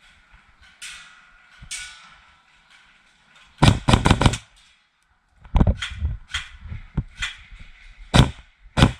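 Airsoft guns firing: two faint shots in the first two seconds, a rapid burst of about five sharp shots near the middle, then single shots at uneven intervals of about half a second for the rest.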